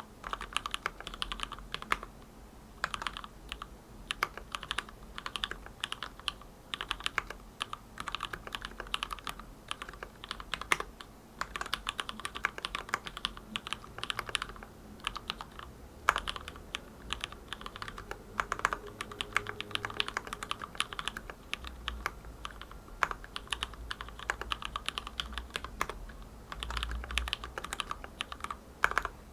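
Typing on a hand-wired mechanical keyboard with linear Gateron Milky Black switches lubed with Krytox 205g0, in an acrylic sandwich case: rapid runs of keystroke clacks with short pauses between bursts, and an occasional louder stabilised key such as the spacebar.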